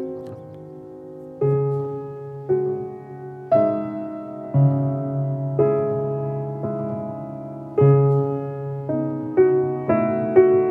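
Background music: slow piano chords, struck about once a second and left to ring, a little quicker near the end.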